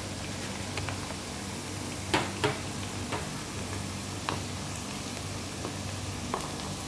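Potato pieces frying in hot oil in a pan: a steady sizzle with sharp pops of spattering oil, the loudest two close together about two seconds in and a few more after.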